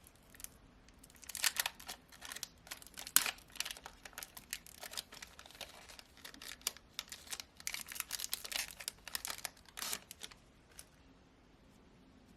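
Foil wrapper of a Pokémon trading card booster pack crinkling and tearing, with a busy run of rustles and crackles as the pack and cards are handled, dying away near the end.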